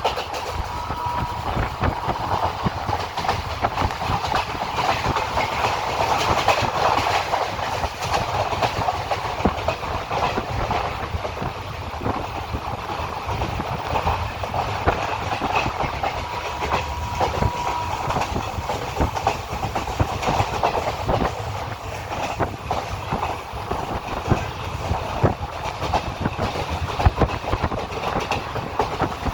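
A train running along the track, with a steady rumble and the rapid clickety-clack of its wheels going over the rail joints.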